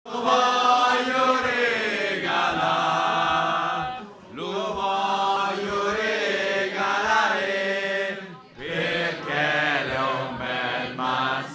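A group of voices singing or chanting together in long held phrases, with two short breaks for breath, about four and eight seconds in.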